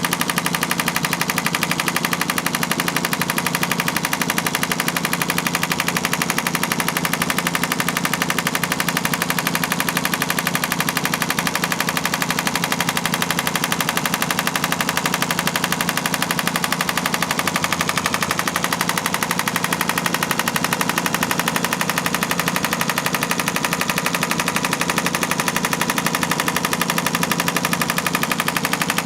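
Radial shockwave therapy device pulsing against the upper back, a rapid, even rattle of pulses that holds steady throughout.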